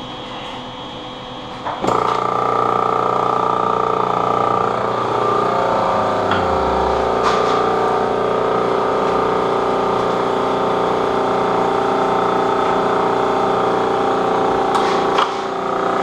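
Refrigerant recovery machine switching on about two seconds in and running steadily with a loud motor-and-compressor hum, pulling the refrigerant charge out of the system; its deepest tone drops in pitch a few seconds after start-up.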